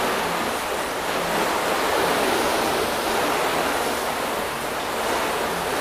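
Water jetting from a pistol-grip garden hose spray nozzle and splashing onto a painted car panel, a steady hiss.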